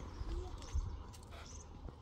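Outdoor ambience: short high chirps repeating about every three-quarters of a second over a low wind rumble, with a few light knocks from concrete blocks being handled.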